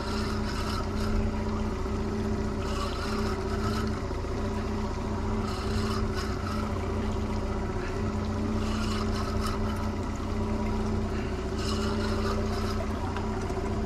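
A boat's engine running steadily, a low even hum, with a short hiss breaking in every few seconds.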